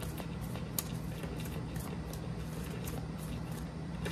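A deck of tarot cards being shuffled by hand, a scatter of faint soft clicks and flicks as the cards slide against each other, one a little sharper about a second in. A steady low hum lies underneath.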